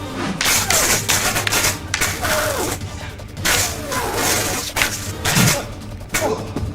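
Lightsaber sound effects: sweeping swings and many sharp clashes in quick succession.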